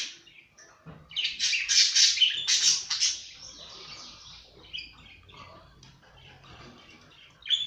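Small cage birds chirping and squawking in rapid, busy bursts, loudest from about one to three seconds in, then quieter scattered chirps, with another short burst near the end.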